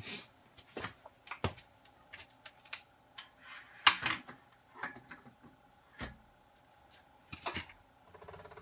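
Irregular clicks and knocks of handling at the bed mill, the loudest about four seconds in, then near the end about a second of rattling as the head's Z-axis crank is turned. A faint steady hum underlies it.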